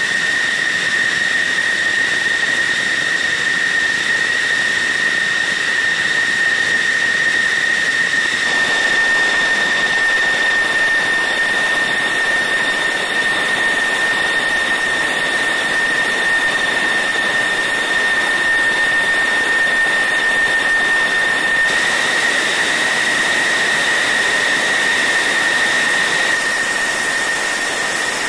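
F-16 Fighting Falcon's jet engine running at idle on the ground: a loud, steady high whine over a constant rush of noise.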